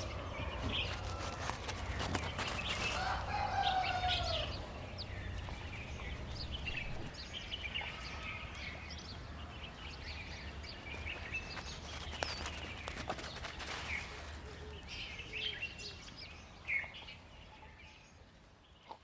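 Farmyard fowl: a rooster crows once, one long arched call a few seconds in, amid many short high chirps throughout. The sound fades down near the end.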